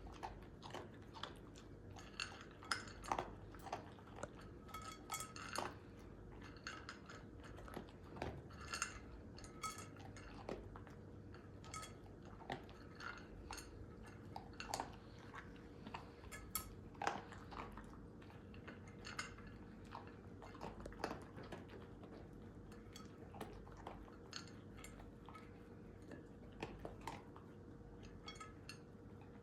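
Faint, irregular small clicks and clinks, a few a second, over a faint steady hum.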